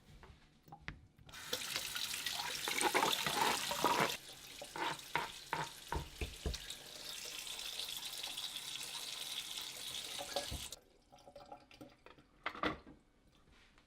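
Kitchen tap running into a sink, with dishes clinking as they are washed; the water shuts off about eleven seconds in, followed by a few light clinks.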